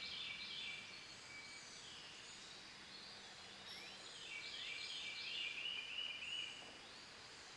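Faint birdsong in the background: repeated phrases of quick, high chirping notes, several times over, above a low steady room hiss.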